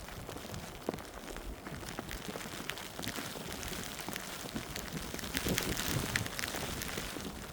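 Footsteps crunching in fresh snow, irregular crackles over a steady hiss, a little louder about six seconds in.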